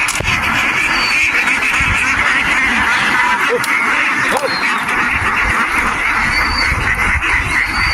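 A large flock of farm ducks quacking all at once, a steady, unbroken mass of calls.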